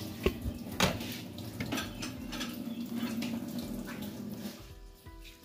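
Steel pots and dishes being handled, with a few sharp clinks and knocks over a soft watery sound.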